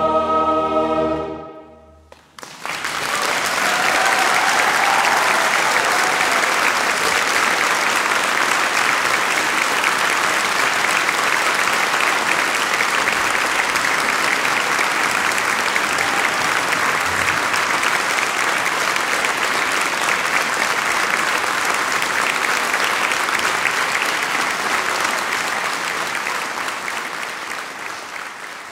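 A choir with string orchestra and piano holds a final chord that breaks off about a second and a half in. After a brief silence, the audience breaks into long, dense applause that slowly fades away near the end.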